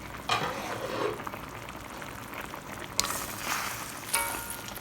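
Chicken braising in black soy sauce, bubbling at a simmer in the pot. A few light clicks of metal on metal, with a short ring about four seconds in.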